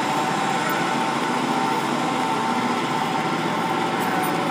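A steady mechanical drone with several held tones, even in loudness throughout.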